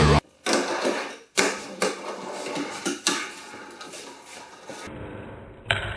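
Fingerboard clacking and rolling on wooden ramps: several sharp clacks of the little board popping and landing on the wood, with fainter wheel rolling in between.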